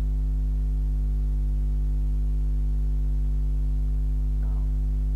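Steady electrical mains hum with its buzzy overtones, holding unchanged throughout.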